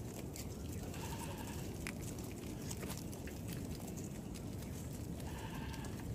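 Two short, high-pitched bleating calls from livestock, one about a second in and one near the end, over scattered clicks of hooves on a gravel road and a steady low rumble.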